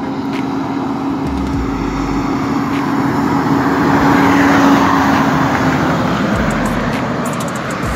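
International 9400 Eagle semi-truck pulling a loaded flatbed trailer, passing at highway speed: a steady diesel engine hum with tyre and road noise that grows louder to a peak about halfway through as it goes by, then eases off.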